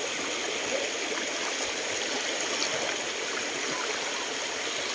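A creek running: a steady, even rushing of flowing water.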